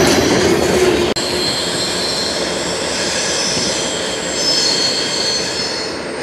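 CSX freight train of covered hopper cars rolling past, its wheels rumbling on the rails. About a second in, the sound breaks off for an instant, and the cars then roll on around a curve with high-pitched wheel squeal coming and going over the steady rolling noise.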